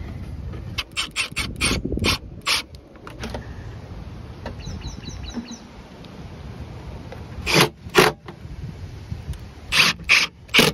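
Cordless drill running in short bursts, driving the screws that mount a subwoofer into its wooden enclosure. About a second in, a run of sharp knocks and clicks comes first.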